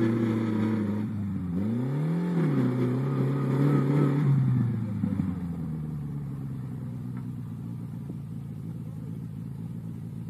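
Homemade off-road buggy's 1600 cc turbo engine revving: a blip of the throttle about two seconds in, revs held for a couple of seconds, then the engine note falls away to a lower, quieter running sound about halfway through.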